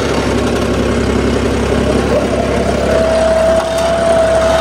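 Diesel tractor engine running steadily while working soil, with a high steady whine joining in about three seconds in.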